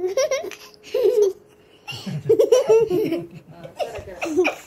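Children laughing and giggling in short bursts, the longest run about halfway through.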